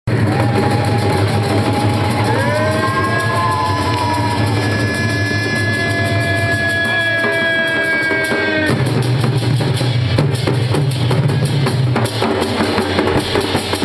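Ghoomra drums, large pitcher-shaped folk drums hung from the players' shoulders, played fast and densely by a group of drummers. For the first eight or nine seconds a held, wavering high tone sounds over the drumming, rising in pitch about two seconds in and then cutting off.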